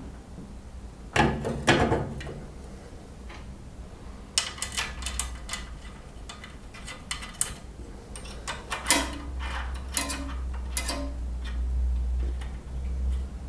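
Metal objects being handled: a knock that rings on about a second in, then a run of light metallic clicks and clinks, over a low steady hum that grows stronger in the second half.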